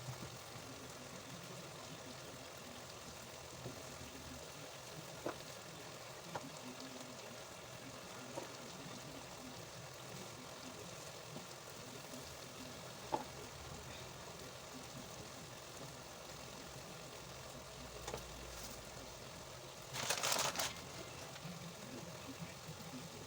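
Pot sizzling and bubbling steadily on the stove, with a few sharp knocks of a cooking utensil and a short, louder burst of noise near the end.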